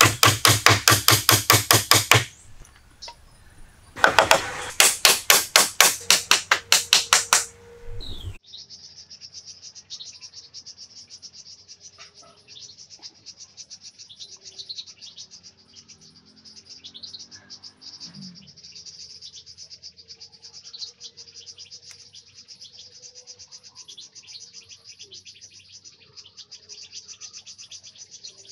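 A hammer drives a nail into a wooden pole joint in two runs of quick blows, about four a second, with a short pause between. About eight seconds in the hammering cuts off, leaving a steady, high insect buzz with occasional bird chirps.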